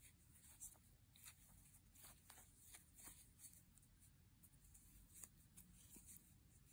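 Near silence with scattered faint rustles and soft ticks of yarn being worked with a crochet hook.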